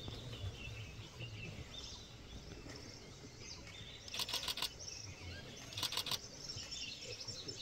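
Forest ambience with birds chirping and insects. Two short bursts of three or four rapid clicks come about four and six seconds in.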